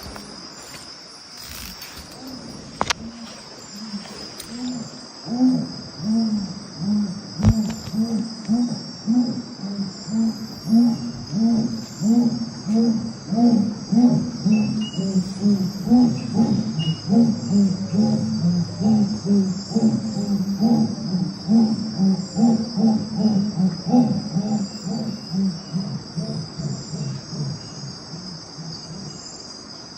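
Jaguar calling: a long series of deep, rhythmic grunts, a few a second, starting about five seconds in and fading out near the end. A steady high chirring of crickets and other insects runs underneath.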